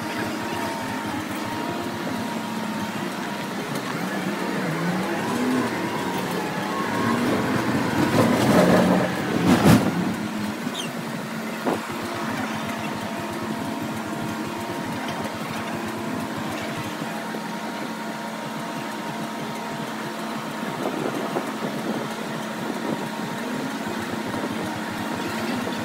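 Interior sound of a MAN A95 Euro 6 bus under way: steady engine and drivetrain hum whose pitch rises and falls as it pulls away and changes speed. The sound swells louder about eight seconds in and ends in a sharp knock about ten seconds in, with a smaller click shortly after.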